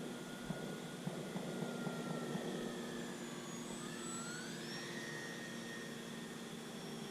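RC model Cessna 182 in flight, its motor and propeller whining. The pitch sags slightly, then rises about four seconds in and holds. Crackling rustle runs through the first few seconds.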